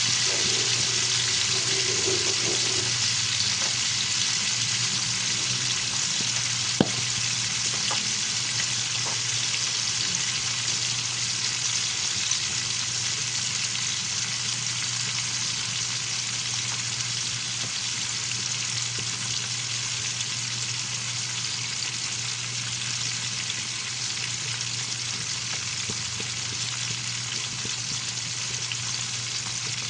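Milkfish (bangus) frying in hot oil in a pan: a steady sizzle that slowly eases over the half minute, with a single sharp click about seven seconds in.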